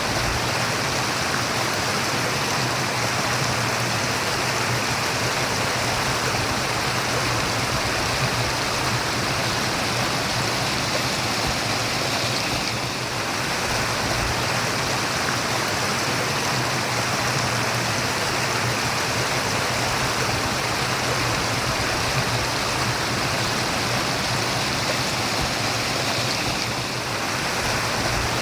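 Stream water flowing and babbling steadily, an even continuous rush with no other sounds.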